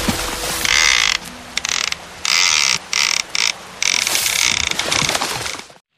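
Fishing reel drag ratcheting as line is pulled off the spool, in several runs that start and stop, cutting off suddenly near the end.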